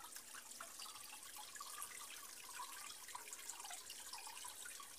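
Faint, steady trickle of water in a backyard fish pond, with small drips and splashes.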